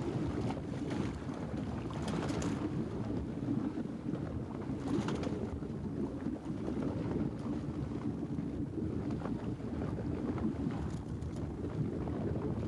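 A fishing boat's engine running steadily underway, with wind on the microphone and a few short hisses about two, five and eleven seconds in.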